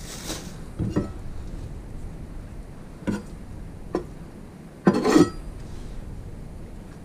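A kitchen knife knocking and tapping on a wooden cutting board in a few separate knocks, with a louder cluster of knocks and clatter about five seconds in.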